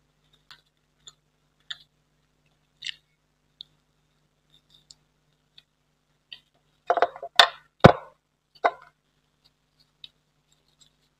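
Close-miked mouth sounds of a person eating sweets: soft, sparse chewing clicks, then a burst of loud wet smacks and clicks about seven to eight seconds in, and one more shortly after.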